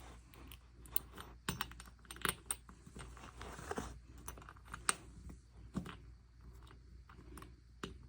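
Irregular small clicks and scrapes of a screw being driven in by hand with a screwdriver, fitting a door stopper.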